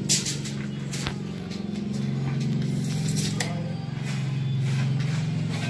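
Background music with low sustained chords, with a few sharp clicks over it.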